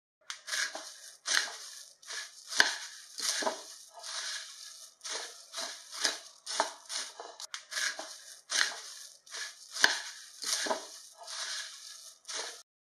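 Dry puffed rice being stirred and tossed in a nonstick pan with a silicone spatula: a crisp, crunchy rustle in quick strokes, about two a second, with two sharp knocks of the spatula against the pan.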